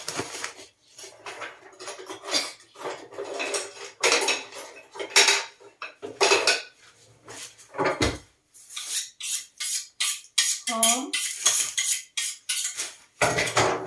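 Groceries being unpacked and handled on a kitchen counter: plastic packaging rustling, and packs and containers knocking and clattering as they are picked up and set down, in an irregular stream.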